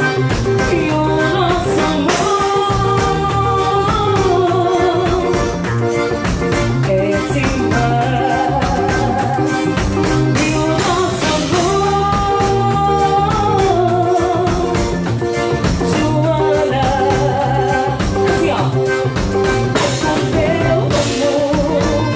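Live forró band: a woman singing through a microphone and PA, over piano accordion and drum kit.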